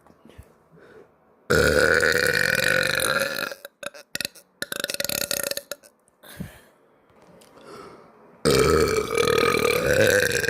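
A girl burping twice. Each burp is long and loud: the first starts about a second and a half in and lasts about two seconds, and the second starts about eight and a half seconds in and is still going at the end. A few short clicks are heard between them.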